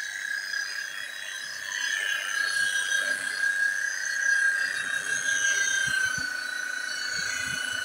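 Electric rotary polisher with a wool buffing pad running on a wet car bonnet during rubbing-compound polishing: a steady high motor whine over a hiss from the pad. The whine dips slightly in pitch about six seconds in.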